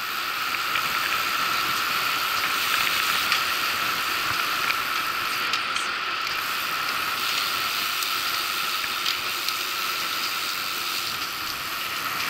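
Steady hiss of riding noise from a bicycle on the move, wind and tyres on the road, with a faint steady whine through it and scattered small ticks.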